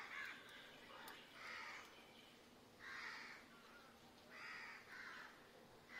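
Faint cawing of a crow: several harsh calls about a second and a half apart, the last two coming close together.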